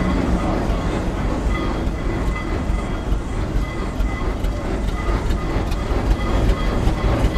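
Steady rumble and clatter of a steam traction engine and the wagon it tows, heard from aboard the moving wagon, with faint clicks running through it.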